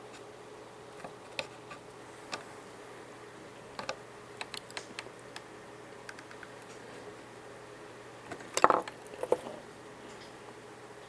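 Light clicks and taps of small tools and parts being handled during capacitor replacement on a circuit board, with a louder clatter about eight and a half seconds in, over a faint steady hum.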